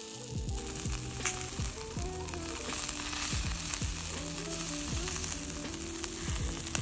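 Chicken-skin and wing skewers sizzling over Kishu binchotan charcoal, with a steady fine crackle as fat drips onto the hot coals. Background music with a soft beat runs underneath.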